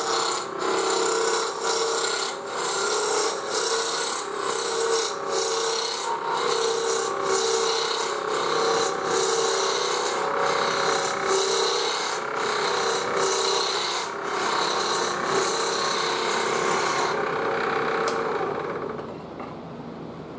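Spindle roughing gouge cutting a wood spindle spinning on a lathe: a continuous scraping, shaving noise over the lathe's steady hum, with brief dips as the tool is moved along the rest. The cutting stops about three-quarters of the way through, and the lathe winds down near the end.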